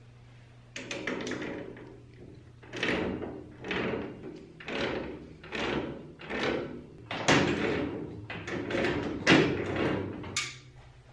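A run of knocks and clunks, about one a second, the later ones the loudest, over a faint steady low hum.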